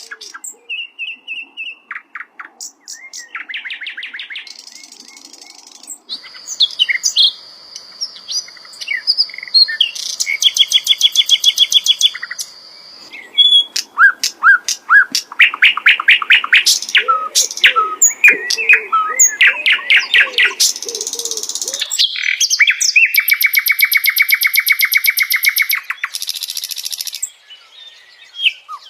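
A sikatan londo flycatcher singing a long, varied song of rapid trills, steady whistled notes and quick runs of repeated notes. Near the end comes a fast buzzy trill lasting several seconds.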